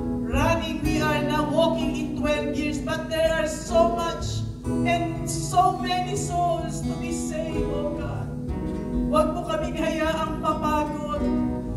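Live worship song: a woman singing into a microphone, her voice wavering with vibrato, over a band led by acoustic guitar with sustained low accompaniment.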